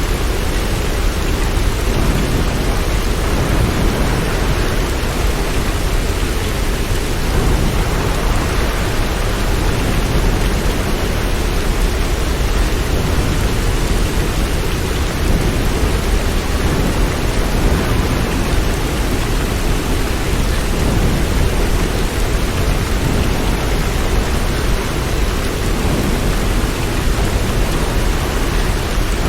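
Steady rain, an even rushing noise with no break, heaviest in the low end.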